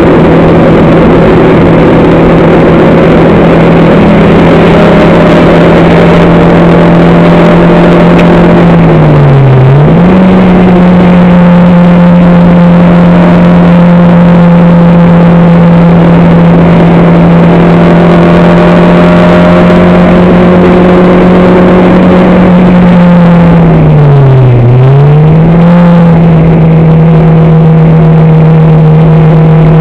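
Race car engine heard on board, running hard at steady high revs. The revs drop sharply and climb straight back twice, about ten seconds in and again near twenty-five seconds.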